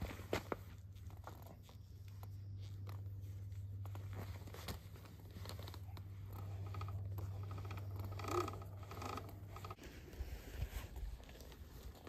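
Rustling, scraping and clicking of motocross riding gear being handled and put on, over a steady low hum that stops about ten seconds in.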